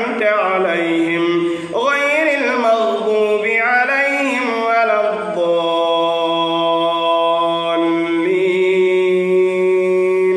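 A man's solo voice reciting the Qur'an in melodic tajwid style: ornamented rising and falling phrases, then long held notes through the second half.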